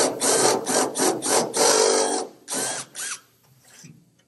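Cordless drill with a step drill bit cutting into aluminium sheet, run in quick pulses of about three to four a second, then two more short bursts before it stops about three seconds in. It is opening holes out to the step for M4 riv nuts.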